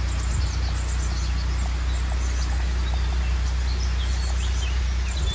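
Narrowboat engine running steadily at low revs, a constant low hum, with small birds chirping over it.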